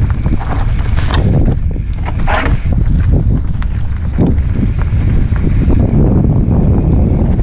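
Wind buffeting a helmet-mounted GoPro's microphone while a mountain bike rolls fast down a dirt singletrack: a loud, steady rumble with the tyres on dirt and short clicks and knocks as the bike rattles over roots.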